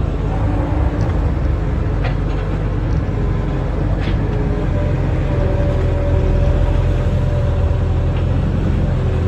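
Barge-mounted excavator's diesel engine running steadily under work, a loud low drone, with a few faint sharp clicks or knocks about two to four seconds in.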